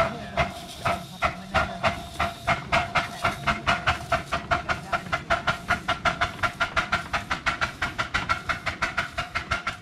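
Miniature steam locomotive chuffing as it pulls a loaded passenger car away. The exhaust beats quicken steadily as the train gathers speed, from about two to about five chuffs a second.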